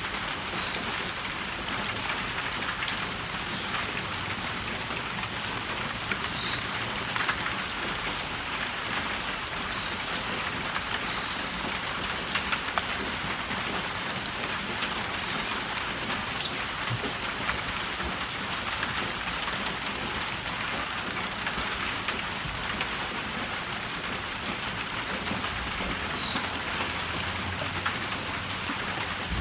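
Steady rain falling on a tin roof and on inflated rubber balloons, with scattered sharper drop taps standing out from the even patter.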